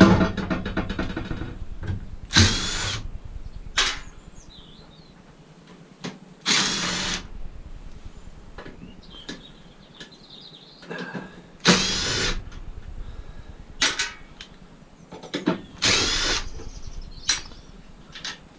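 Cordless power drill run in about four short bursts while dismantling scrap, with a few sharp metal knocks between them. A metallic clang rings out and fades at the start.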